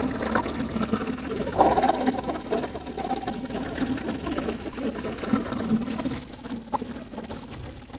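A boat's motor running steadily, with faint voices of passengers murmuring over it.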